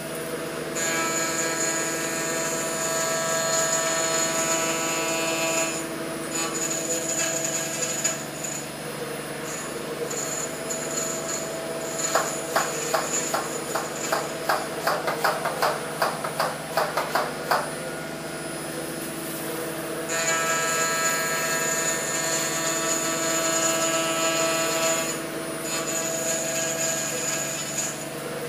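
CNC router spindle milling a metal plate: a steady high-pitched cutting whine that comes and goes as the end mill moves through the pockets. A rapid run of sharp ticks, about three or four a second, lasts roughly six seconds in the middle.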